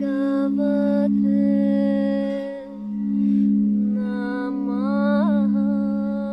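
Singing bowl ringing with a steady low drone that swells and fades slowly. Over it a voice chants long held notes, sliding briefly up and back down about five seconds in.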